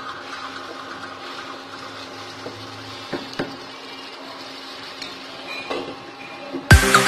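Thick onion-tomato masala sizzling and bubbling in a pan as a spoon stirs it, with a couple of sharp clicks about three seconds in as a glass lid is set on the pan. Loud electronic music starts just before the end.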